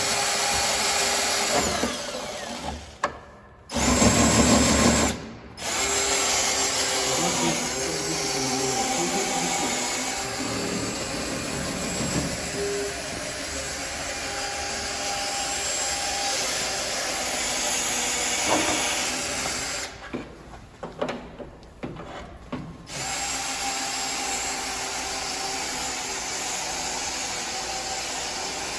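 Cordless drill running in long stretches with a steady whine, stopping briefly a few times, as it widens a hole in a minivan's tailgate to fit a rear camera. A stretch of quieter knocking comes about two-thirds of the way through.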